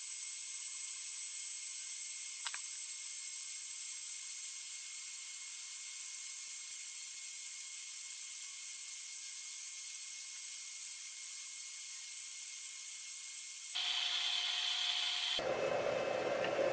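Steady high hiss with thin whining tones from a power inverter running a humidifier and a small refrigerator, with one sharp click a couple of seconds in. Near the end the sound changes abruptly to a lower, fuller rushing noise.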